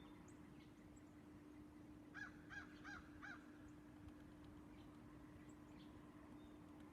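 A bird calling four times in quick succession: short, arched, harsh notes about a third of a second apart, over a faint steady hum.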